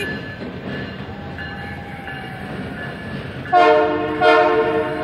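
Canadian Pacific Holiday Train running steadily across a bridge, then sounding its locomotive horn, a chord of several steady notes, in two blasts starting about three and a half seconds in, the second following straight on from the first and still sounding at the end.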